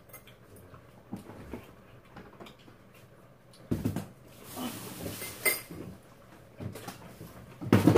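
Sounds of a person eating with chopsticks at a table: small taps and clinks of chopsticks against bowls, and mouth noises of eating. There is a louder knock against the table or dishes about halfway through and another just before the end.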